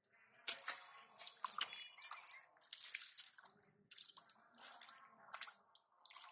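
Hands squelching and splashing in shallow mud and water: a quick, irregular run of wet slaps and drips.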